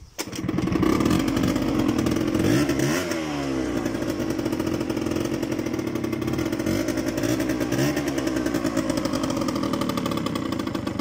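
Honda Dio 50 cc two-stroke scooter engine starting and running, revved up and down a few times. It will not settle to a proper idle: the idle is either too high or too low, a fault the mechanic cannot cure.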